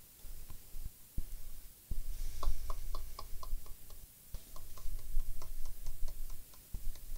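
Two quick runs of short, sharp clicks, about four or five a second, with a brief pause between them, over low handling bumps on a workbench.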